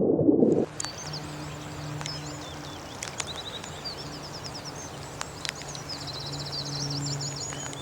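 A loud low rushing noise cuts off abruptly just under a second in. It gives way to outdoor ambience: several birds chirping and trilling, with rapid repeated notes, over a faint steady low hum.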